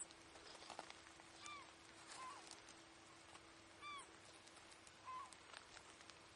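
A bird calling: four short, arched calls spread over a few seconds, over faint scattered clicks and a faint steady low hum.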